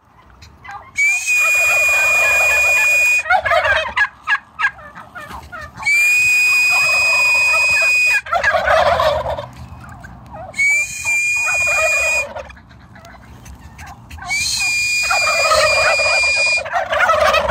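Four long, steady high whistles, each followed by a chorus of tom turkeys gobbling in reply: the toms' shock-gobble answer to a sharp sound.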